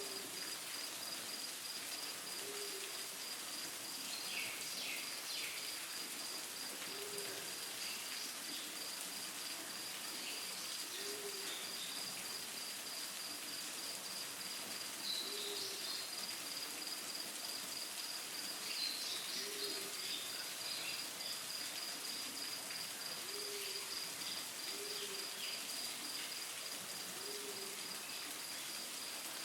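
Waterfall rushing steadily under a fast, even insect trill, with a short low hoot repeated every few seconds and scattered bird chirps.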